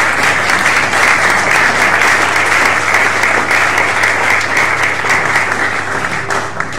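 Applause from a seated audience and a standing male choir, many hands clapping together, thinning out near the end.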